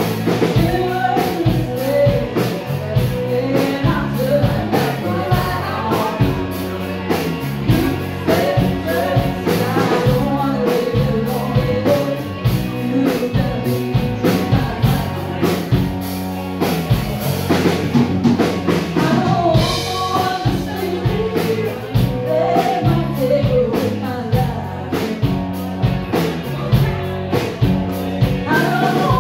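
Live rock band playing: a female lead vocal over electric guitar, bass guitar, keyboard and a drum kit with a steady beat.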